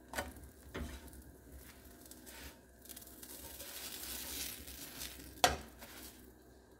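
A spatula scraping and knocking on a hot iron dosa tawa as a folded dosa is lifted off, over a faint sizzle from the pan, with a sharp clink about five and a half seconds in.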